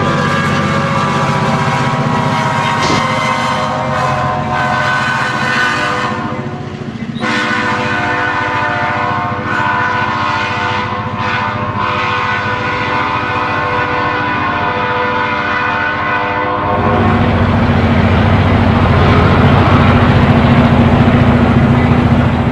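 Sound decoder of an HO scale model diesel locomotive playing a multi-tone horn in long blasts, broken briefly about seven seconds in. From about seventeen seconds the horn stops and a louder, even rumble of the passing model train takes over.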